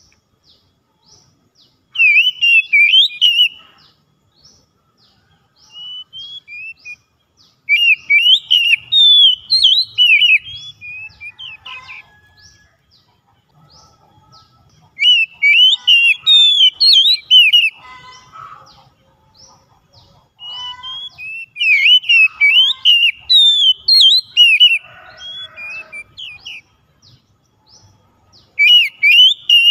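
Oriental magpie-robin singing loud phrases of rapid, varied whistles and chirps, in about five bursts with short pauses between them.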